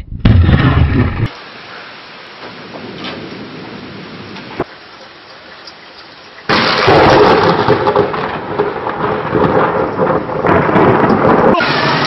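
Thunderstorm: a sudden loud thunderclap with a deep rumble just after the start, then a softer hiss of rain. About halfway, another sudden loud crash of thunder sets in and rolls on for several seconds.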